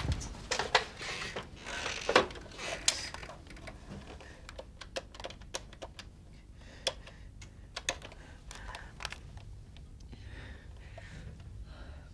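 Cutlery clicking against china plates during a meal: a run of light, sharp, irregular clicks, a few a second, after heavier rustling in the first few seconds.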